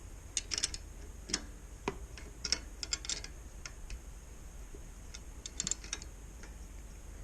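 Scattered light clicks and clinks of hand tools and metal parts being handled, with short runs of ratchet-wrench clicking, coming in small clusters with pauses between.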